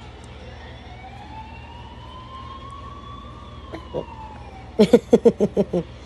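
A quick run of about seven short laughs near the end. Before them, a faint long wailing tone like a distant siren rises and falls over about four seconds.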